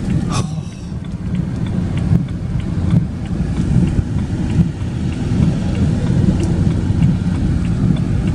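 Steady low rumble of a car driving on the highway, road and engine noise, with faint scattered ticks.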